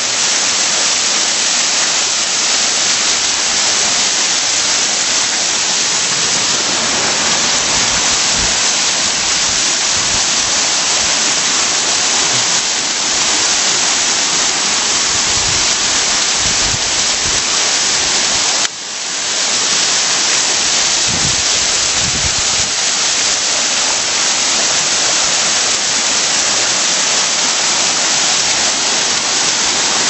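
Several thin waterfalls splashing down a rock face into a shallow rocky pool: a loud, steady rushing hiss. About two-thirds of the way through the sound drops suddenly for a moment and swells back.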